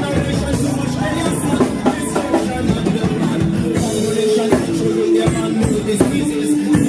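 Band music with a singer holding long notes over a drum kit and bass.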